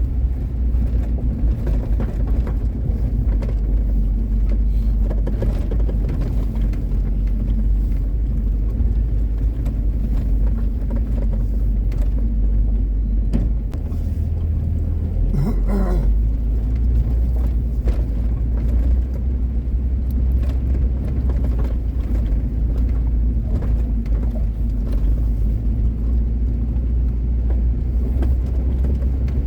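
A vehicle's engine running and a steady low rumble as it drives over a rough snowy mountain track, with scattered small knocks. The rumble changes briefly about halfway through, and a short higher pitched sound comes in at the same time.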